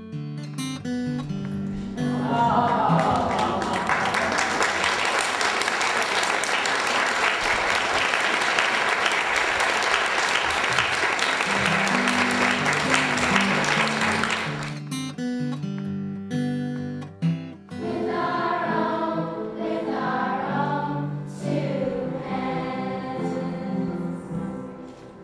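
Children's choir singing with guitar accompaniment as a song ends, then applause for about twelve seconds. After the applause the accompaniment resumes and the choir sings again, with several voices rising and falling together.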